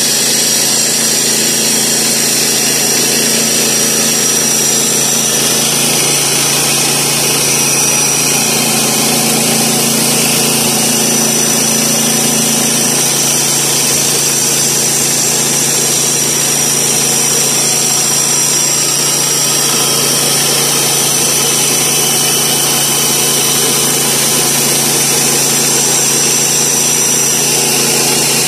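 Woodland Mills HM122 portable bandsaw mill sawing through a sycamore log: its 7 hp engine runs steadily under load, with a steady high whine over the engine note.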